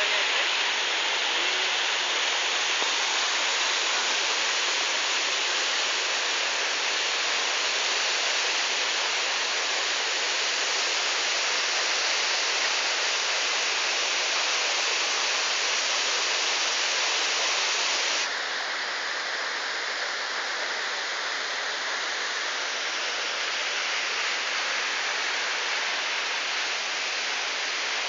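Steady rushing hiss of water falling in a cascade, even and unbroken; about two-thirds of the way through it abruptly turns duller and a little quieter.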